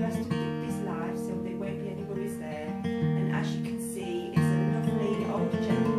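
Background music played on acoustic guitar, with held chords and picked notes, a little louder from about four seconds in.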